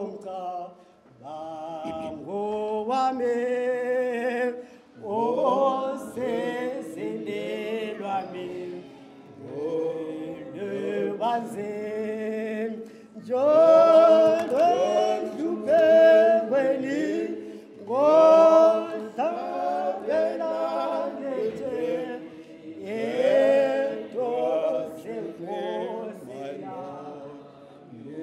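A group of voices singing a slow hymn without accompaniment, holding each note for a second or two.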